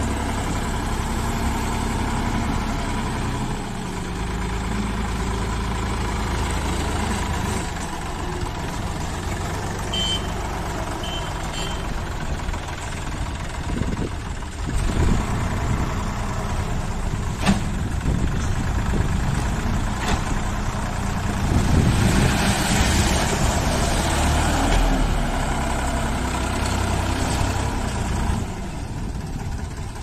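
Sonalika tractor's diesel engine running steadily as the front loader works gravel, getting louder for a few seconds a little past the middle. A few short high beeps sound about ten seconds in.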